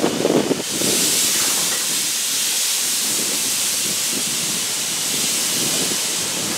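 Steam locomotive's open cylinder drain cocks letting off a steady loud hiss of steam as the engine starts away, beginning about a second in.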